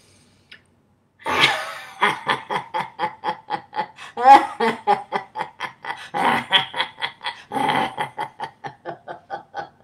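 A woman laughing hard and on purpose as a laughter-yoga exercise, laughing on the exhale after a big breath in. It is a fast, rhythmic run of "ha-ha" pulses, about four a second, starting about a second in after a brief silent held breath.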